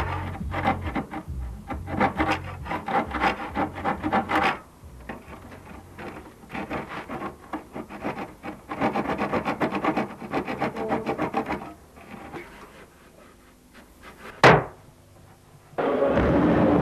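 Electronic sound effects from a sound system's special-effects box: rapid clicking and rattling patterns, then a single sharp zap-like shot about fourteen seconds in, and a dense loud sound starting near the end.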